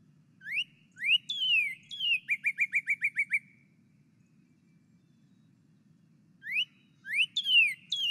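Recorded northern cardinal song: a phrase of rising and falling slurred whistles followed by a quick run of about eight short notes, then after a pause of about three seconds the phrase begins again.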